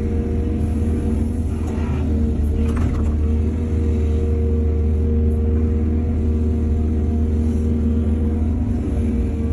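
A heavy diesel engine of an excavator running steadily: a deep, constant drone with a steady tone above it. Two brief noises come through about two and three seconds in.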